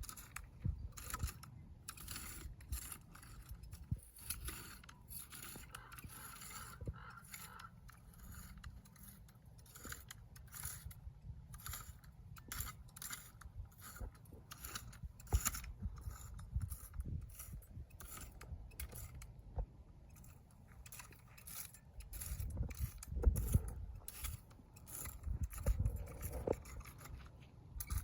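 Dry weeds being cleared with a hand tool: a run of irregular scraping and crackling strokes, with low rumble from handling or wind that grows louder near the end.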